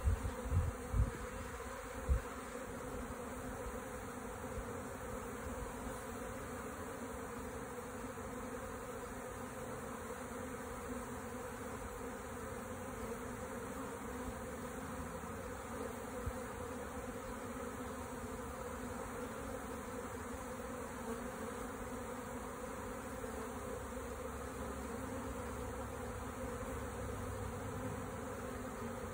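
Honeybees buzzing steadily in a dense, even hum around an open top bar hive, with a few short knocks in the first couple of seconds.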